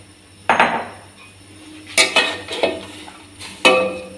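A metal slotted spoon knocking and scraping against an aluminium karahi while stirring chunks of raw beef: four loud clanks, each ringing briefly.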